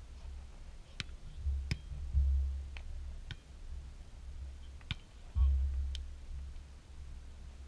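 Beach volleyball in play: a handful of sharp slaps of hands and arms on the ball, some close and some fainter from across the net. A low wind rumble on the microphone swells twice.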